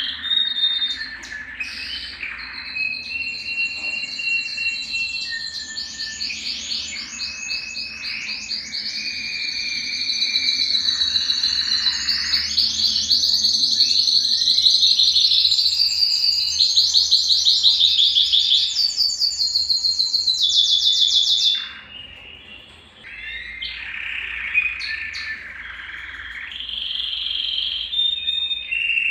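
Domestic canary (Belgian canary) singing a long song of warbled notes and fast rolling trills. The loudest stretch is a long run of rapid trills in the middle that breaks off suddenly; after a short pause about three-quarters of the way through, the song starts again.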